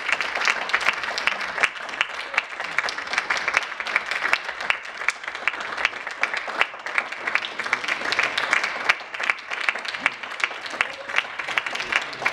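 Audience applauding: steady, dense clapping with many individual sharper claps standing out.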